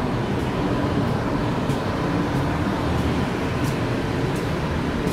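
Steady rumble of a navy ship's ventilation and machinery in a steel passageway, with footsteps about every two-thirds of a second.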